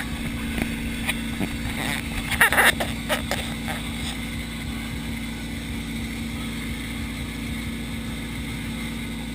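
Motorboat engine running steadily under way, with the wake water rushing behind the stern. A brief cluster of knocks about two and a half seconds in.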